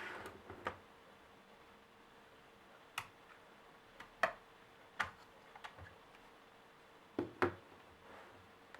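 Scattered sharp clicks and taps of hands and a tool on an Acer Extensa 5260 laptop's plastic case during disassembly, a second or so apart with two quick pairs, after a brief rustle at the start.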